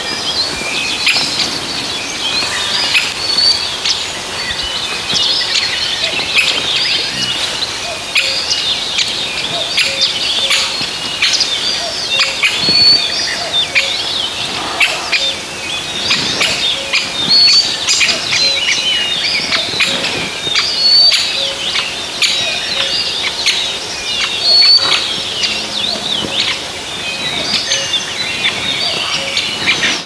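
Many songbirds singing and calling at once: a dense chorus of overlapping chirps and short whistles.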